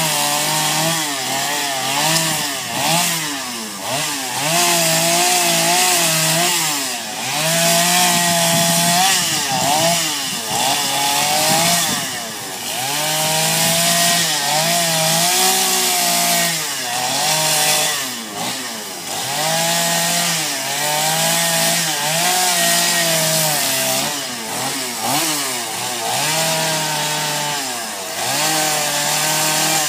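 Gas chainsaw carving into a wooden sculpture. Its engine revs up and eases off again and again, every second or two, as the throttle is worked during the cuts.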